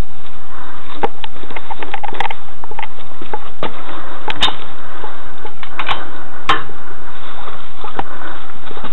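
Sharp metal clinks and knocks of a lug wrench on a car's wheel nuts as each nut is checked for tightness, the loudest about four and a half and six and a half seconds in, over a steady hiss.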